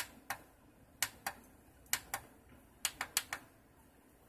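Front-panel push buttons of an MPP Solar LV5048 inverter being pressed repeatedly: about ten sharp clicks, mostly in quick pairs, as the display is stepped through its readings.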